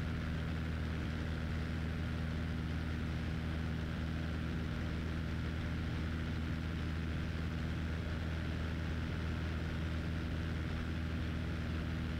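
Cessna 172 Skyhawk's piston engine and propeller running at climb power, heard inside the cockpit as a steady, unchanging drone with several even low tones.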